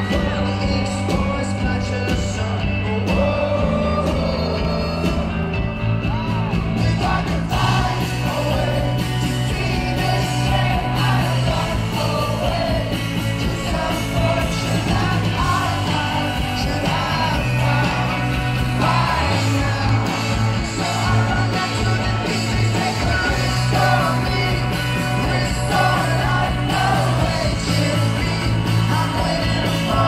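Live rock band playing through a concert PA, recorded from the crowd: electric guitar, drums and a bass line that moves between held notes, with the lead singer singing into a microphone.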